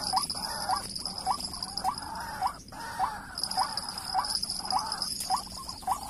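White-breasted waterhen calls: short rising notes repeated evenly about twice a second. Under them runs a steady high-pitched whine that drops out for a moment midway.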